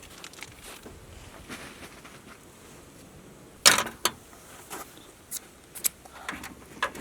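Food-prep items being handled while a sandwich is put together: a sharp clack about halfway through, a second one just after, then a few lighter clicks.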